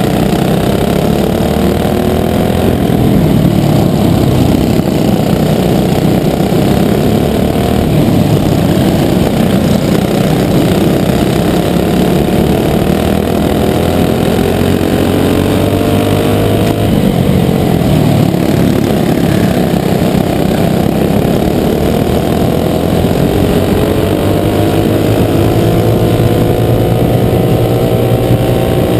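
Briggs & Stratton Animal four-stroke single-cylinder kart engine heard from onboard at racing speed, its pitch climbing as it accelerates and dropping off into the corners several times. Other karts' engines run close alongside.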